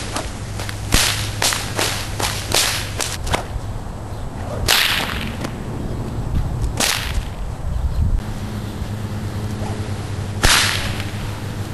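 Whip cracking: a fast run of about ten sharp cracks in the first three seconds or so, then three single louder cracks, each with a swish, spaced a couple of seconds or more apart.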